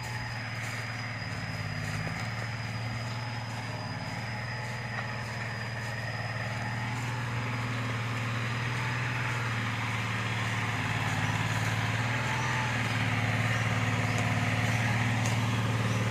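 A motor running steadily with a constant low hum, growing gradually louder, over a faint steady high whine.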